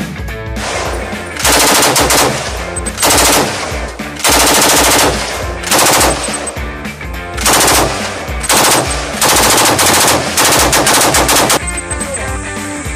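K12 7.62×51mm belt-fed machine gun firing automatic bursts. There are about eight short bursts, each under a second long, over background rock music.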